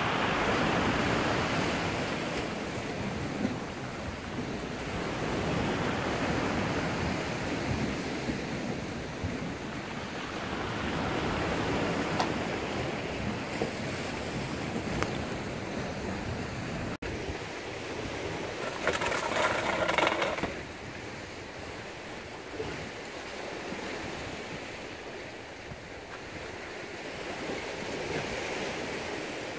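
Rough sea washing against a rocky shore, swelling and easing every few seconds, with wind on the microphone. A short, louder sound breaks in about two-thirds of the way through.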